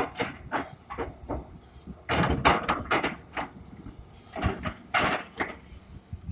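John Deere excavator at work, giving a run of irregular clanks and knocks over a low rumble, loudest about two and a half seconds in and again near five seconds.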